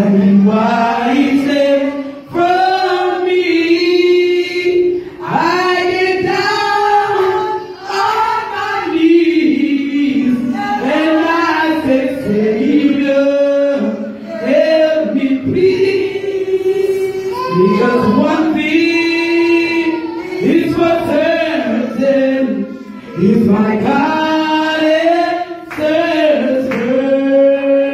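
Voices singing a slow gospel song in church, long held notes in phrases a few seconds apart.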